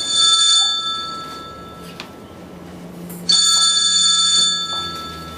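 Telephone ringing: a ring already sounding at the start fades out about two seconds in, and a second ring, a chord of several high steady tones, cuts in a little past three seconds.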